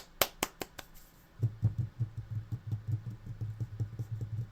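Hand-made percussion: a quick run of sharp clicks, like finger snaps, for the first second. After a short pause a low, pulsing hum begins, with fast light ticks over it.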